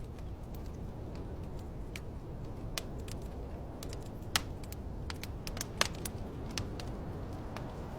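Wood fire crackling and popping in a fireplace: irregular sharp pops, the two loudest a little past the middle, over a steady low rumble.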